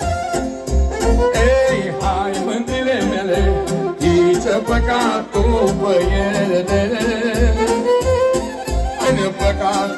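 Maramureș folk dance tune led by a violin (ceteră), its melody running continuously over a steady low beat from the amplified accompaniment.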